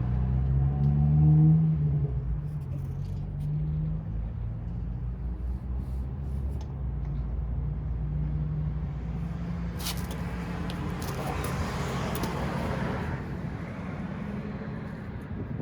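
A vehicle engine rumbling, with its pitch rising over the first two seconds, then a steady low rumble. About ten seconds in, used motor oil pours with a rushing sound into a plastic oil bottle for about three seconds.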